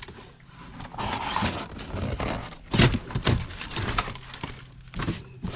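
Large cardboard box being pulled open and handled, its flaps rustling, scraping and knocking in an irregular run of noises, loudest about three seconds in.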